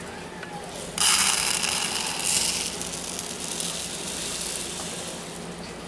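Mixed Tannerite powder being poured into a plastic target jar: a hissing rush of granules starts suddenly about a second in and slowly tapers off.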